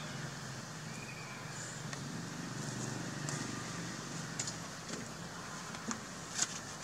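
Steady outdoor background with a low hum, a brief faint high squeak about a second in, and a few light clicks in the second half.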